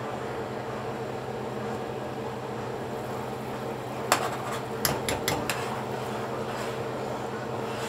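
A glass pot lid lifted off a frying pan, then a spoon clinking against the pan about five times in quick succession as the steamed fish and vegetables are basted. A steady hum runs underneath.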